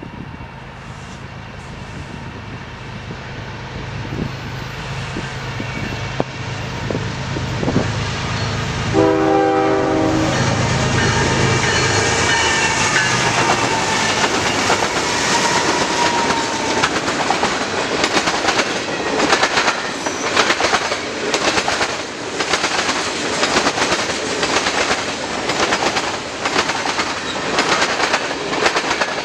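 Canadian National freight train approaching and passing: the diesel locomotives' low rumble grows louder, and a short horn blast sounds about nine seconds in. The locomotives then go by loudly, followed by a long string of tank cars and boxcars clattering over the rail joints in a steady clickety-clack.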